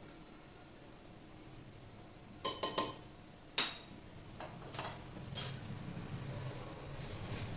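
Metal kitchenware clinking and knocking as a pressure cooker and utensils are handled: a quick run of sharp clinks about two and a half seconds in, a single loud clink a second later, then scattered lighter knocks. A low hum sits underneath from about halfway through.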